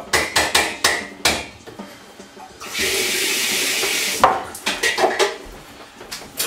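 Kitchen utensils and dishes clattering and knocking while someone rummages for a mixing spoon. A steady rushing hiss runs for about a second and a half in the middle, between the bouts of clatter.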